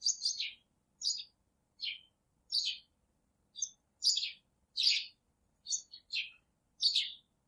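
Small bird chirping: about ten short, high chirps, each falling in pitch, repeated at uneven intervals of roughly half a second to a second.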